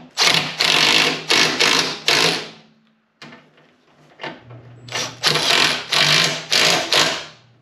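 Cordless impact driver running in short bursts as it tightens the bolts that hold an intercooler pump to its bracket. There are two runs of several bursts each, the first right away and the second starting about halfway through, with a short pause between.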